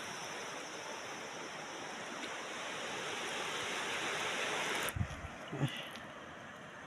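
Steady rushing of river water that swells slightly, then drops off abruptly about five seconds in, with two brief low sounds just after.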